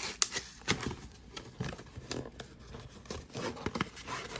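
Cardboard and paper packaging being handled and unwrapped: irregular crinkling and rustling with scattered light clicks and knocks.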